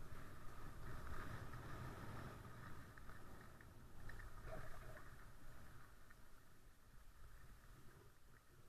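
Sliding down a ski slope: skis hissing and scraping on packed snow with wind rumbling on a helmet-mounted camera, dying down near the end as the run slows.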